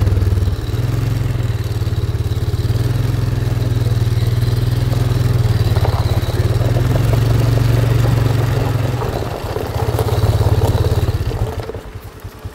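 Polaris Magnum ATV engine running steadily under way. Near the end it drops back toward idle, and its firing pulses can be heard.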